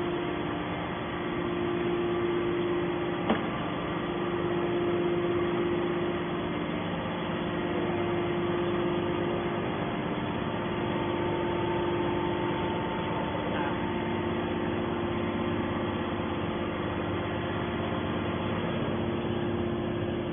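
Hydraulic can baler's motor and pump running with a steady hum, with a single sharp click about three seconds in.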